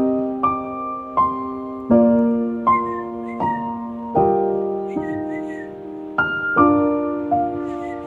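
Background piano music: a slow melody of single struck notes and chords, each ringing out and fading before the next.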